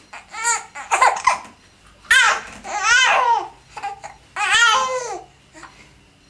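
Baby babbling: four high-pitched vocal sounds that swoop up and down in pitch, the longest about a second long.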